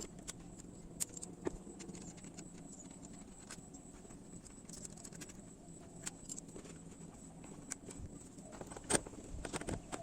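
Faint, scattered metallic clicks and clinks of hand tools on the motorcycle's starter-motor bolts, with a small cluster of clinks near the end.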